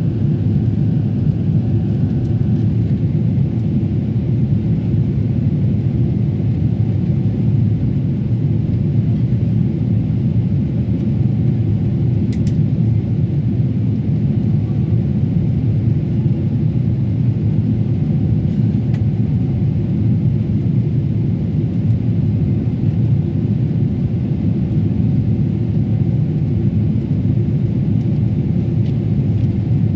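Steady low rumble of engine and airflow noise inside the cabin of a Boeing 777-300ER airliner as it departs, its GE90 turbofans running under power.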